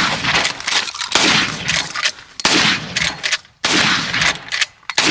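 Gunshots in quick succession: a loud shot about every second and a quarter, five in all, each followed by a long echo, with fainter shots in between.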